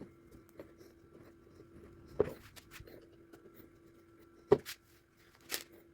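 Two sharp knocks of parts being handled as an electric fan's motor bushing and cap are reassembled, one about two seconds in and a louder one past four seconds, with faint clicks between.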